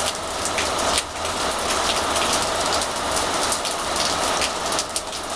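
Steady rain falling, with many individual drops ticking sharply on nearby surfaces close to the microphone.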